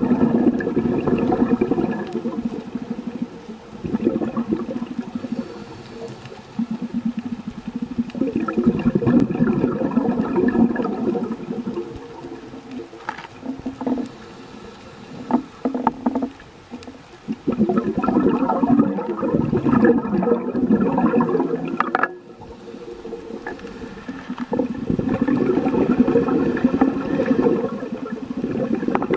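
Scuba diver's exhaled bubbles gurgling out of the regulator underwater, in breath-long bursts of a few seconds each with quieter gaps between, about five times.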